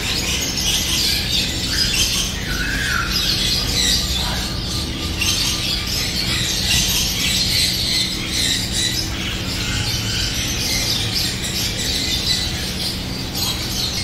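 A crowd of small caged finches chirping and chattering without a break, with a steady low hum underneath.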